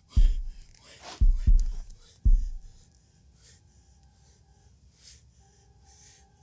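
Deep booming thuds, four in about two seconds with the middle two close together like a heartbeat, under a man's gasping breath. After the thuds stop the man keeps panting faintly while a quiet, high, steady music drone comes in.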